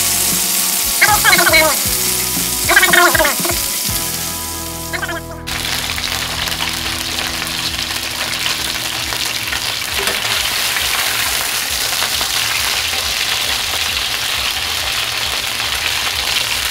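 Pork steaks frying in hot butter and oil in a non-stick pan: a steady sizzle. For the first five seconds or so, short musical phrases sit over the sizzle, then an abrupt cut leaves the sizzle on its own.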